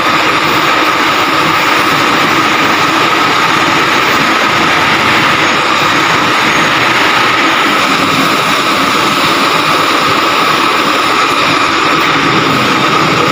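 Heavy engine of the lifting machine running steadily, with a constant high whine over it, while a sling-hung stack of mild steel plates is lowered.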